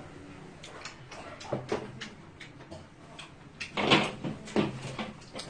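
Paper tissue pulled from a holder and handled, rustling, with scattered light clicks and knocks. The loudest rustle comes about four seconds in.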